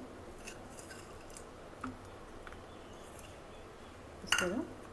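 Faint, scattered light ticks as chopped dry fruits (almonds and cashews) are sprinkled by hand onto glasses of lassi, over a low hum. A short vocal sound comes about four seconds in and is the loudest thing.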